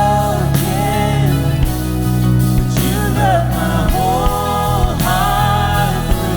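Contemporary Christian worship song: a singer's voice carrying the melody over sustained low instrumental chords.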